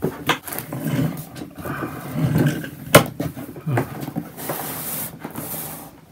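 Plastic Hozelock hose reel being handled and swung round on a cardboard floor: scraping and rubbing with a few knocks, the sharpest about three seconds in.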